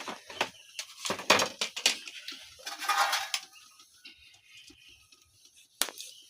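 Knocks and clatter of cooking utensils and pots, with a rough scraping noise about three seconds in and a quieter spell before a last sharp knock near the end.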